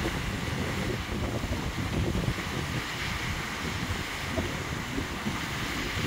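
Wind buffeting the microphone over the steady rush of a small waterfall.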